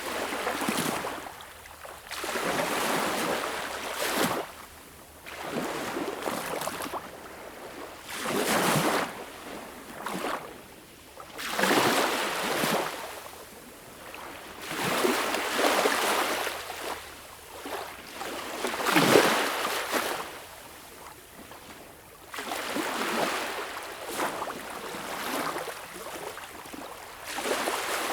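Small waves lapping and breaking on a beach shore, a washing swell every two to four seconds, with the biggest about two-thirds of the way through.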